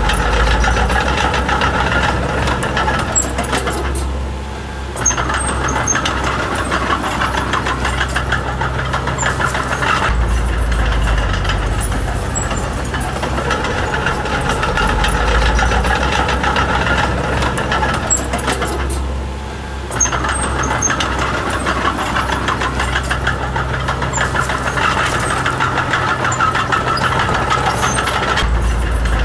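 Small crawler bulldozer's diesel engine running hard, with two short drops in engine sound, one a few seconds in and one about two-thirds through.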